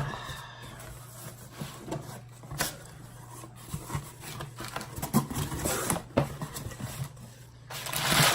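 Cardboard shipping box being handled and opened: scattered rustles, scrapes and light knocks, with a longer, louder rustle near the end.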